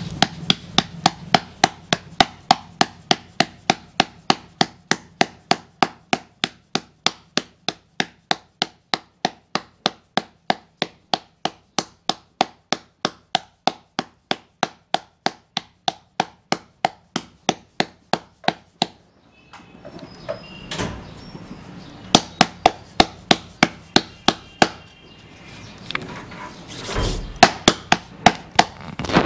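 Bare palms patting jowar (sorghum) flour dough flat into a roti on a floured board: a steady run of sharp slaps, about three a second. About two-thirds of the way through the pats stop for a few seconds of softer rubbing and pressing, then start again in short runs.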